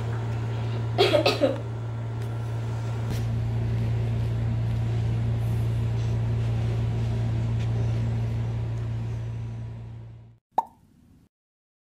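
Steady low hum with a faint hiss, fading out about ten seconds in; a short voice sound about a second in and a single click just after the fade.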